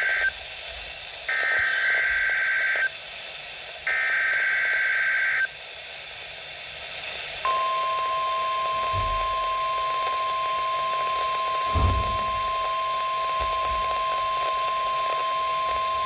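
Midland NOAA weather radio's speaker sounding a Required Weekly Test. It plays the buzzy SAME digital header bursts, the first ending as the sound begins, then two more about a second apart. After a short gap comes the steady 1050 Hz weather radio warning alarm tone, held for about nine seconds from about seven seconds in.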